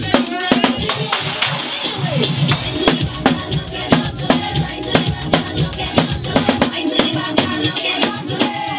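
Live drum kit played fast and hard over loud dance music from a sound system: rapid snare and rimshot hits with bass drum, and a cymbal crash washing over the beat about a second in.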